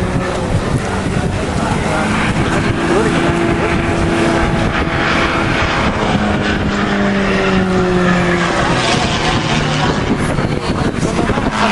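Aircraft engine passing during an aerobatic display, a steady drone whose pitch slowly shifts and falls as the plane goes by.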